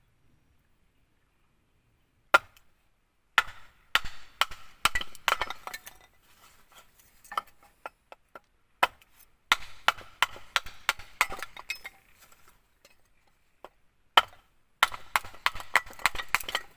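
Sharp knocks and clinks of hard objects, some of wood, in quick irregular bursts: a single loud knock about two seconds in, then runs of rapid strikes, and a last dense burst near the end.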